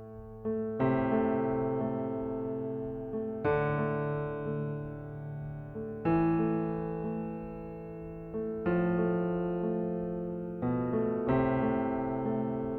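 Slow piano music: sustained chords struck about every two and a half seconds, each left to ring and fade before the next.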